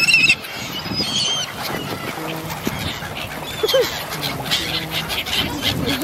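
A mixed flock of swans, mallards and gulls calling on the water: shrill gull cries in the first second or so, then lower duck-like quacking and honking calls.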